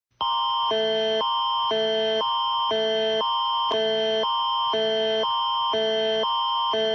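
Emergency alert attention signal of the Canadian Alert Ready type: two electronic chords alternating about every half second, with a high tone held steady underneath. It starts a moment in.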